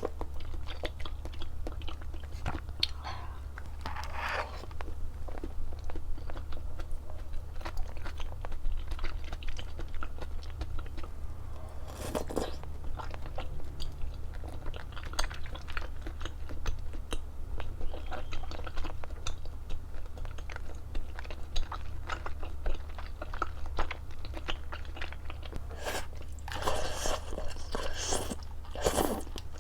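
Close-miked eating: crunchy bites and chewing, with clusters of crisp crunching about four seconds in, around twelve seconds and near the end, over a steady low hum.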